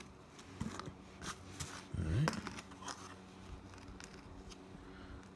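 Handling noise: scattered light clicks, scrapes and plastic packaging rustles as a small plastic-and-metal USB desk fan and its parts are picked up and fitted together.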